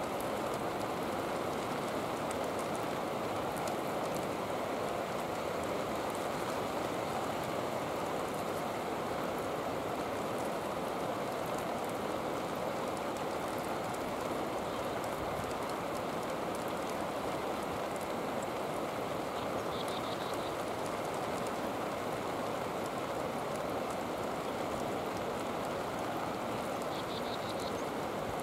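Steady rain falling, an even hiss with fine patter, broken by two brief faint high chirps, one about two-thirds of the way in and one near the end.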